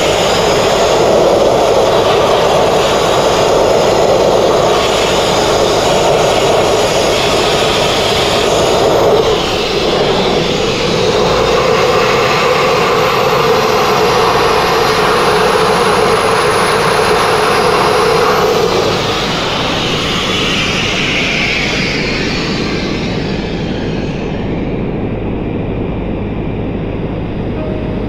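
Sandblast nozzle stripping paint off stone: a loud, steady rush of compressed air and grit. It dies down over the last few seconds.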